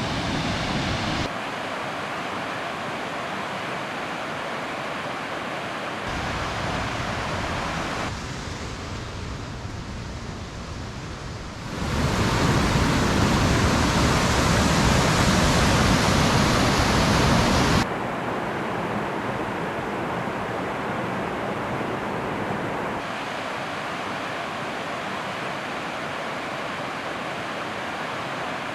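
Waterfall: water rushing and cascading over rocks as a steady wash of noise. It jumps abruptly louder or softer several times and is loudest for a stretch in the middle.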